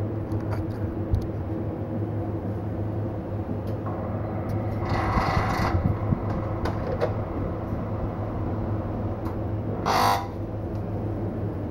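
Steady low machine hum. A brief rubbing, scraping noise comes about five seconds in, and a shorter one about ten seconds in.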